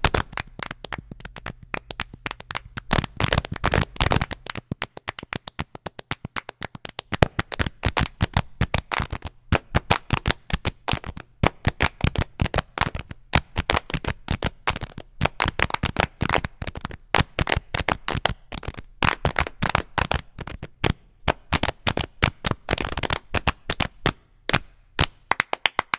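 Body percussion: hand claps and foot stomps in a rapid, dense rhythm, with a low thudding under the first few seconds.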